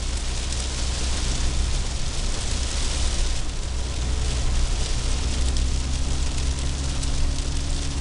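Heavy rain falling hard on the roof and windscreen of a car, heard from inside the cabin, over the steady low rumble of the car driving.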